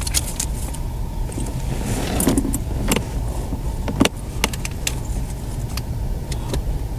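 Irregular sharp clicks and rattles of dash trim pieces and hardware being handled during reassembly, over a steady low hum.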